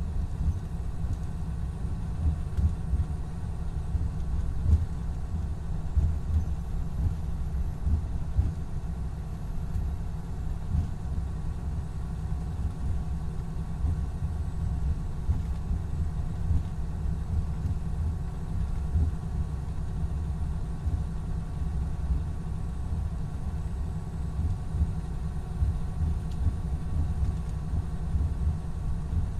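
Cummins ISX12 diesel engine of a 2017 MCI D4500CT coach running at a steady speed: a low, even rumble with no change in pitch.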